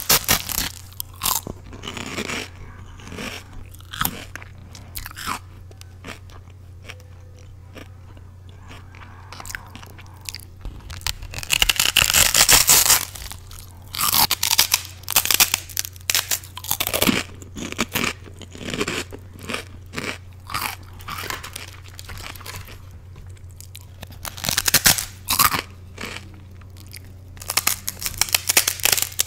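A knife cutting and cracking the crisp skin of a whole roast pork (chicharrón): a run of irregular crackling crunches, the loudest and longest about twelve seconds in. A steady low hum runs underneath.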